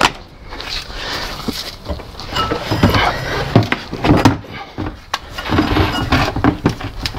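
Morris Minor rear axle and differential assembly being worked free and slid out from under the car: a sharp knock at the start, then irregular metal scraping, clunks and knocks.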